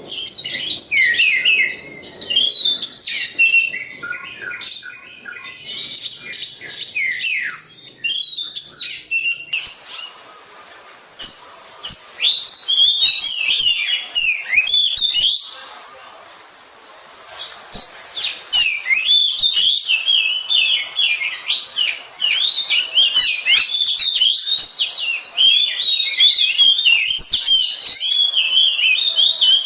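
Oriental magpie-robin (kacer) singing: a fast, varied stream of whistled and chattering phrases, breaking off briefly about ten seconds in and again about sixteen seconds in.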